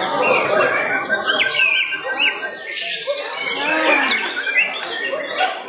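Caged white-rumped shamas (murai batu) singing, with quick rising and falling whistled phrases, clearest about a second to two seconds in, over a crowd chattering.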